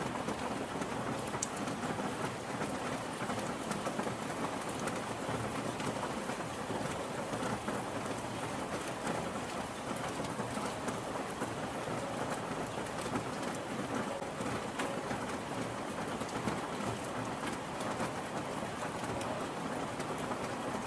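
Steady rain falling, with many small drops tapping on a surface.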